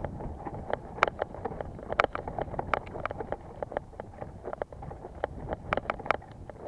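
Mountain bike clattering over a rough trail: irregular sharp rattles and knocks, several a second, over a steady rush of wind on the microphone.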